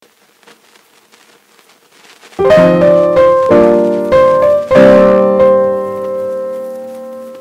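Background piano music: near quiet at first, then piano chords come in loudly about two and a half seconds in and ring on, each one fading.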